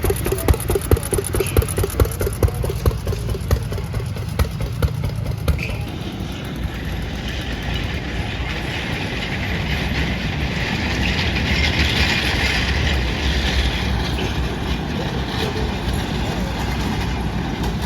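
An engine chugging with a regular beat of about two a second for the first few seconds, then a steady mechanical running noise that swells in the middle and eases off.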